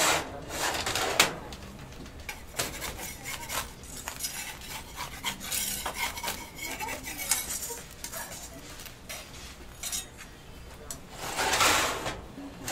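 A metal baking tray sliding out of a bread oven, then a metal spatula and tongs scraping and clicking against the tray as a baked flatbread is lifted and folded; a second longer scrape of the tray sliding comes near the end.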